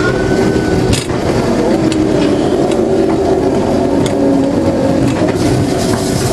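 Ghost train car rolling along its track through the ride: a steady rumble with a few sharp clunks, about 1, 2 and 4 seconds in, and wavering tones over it.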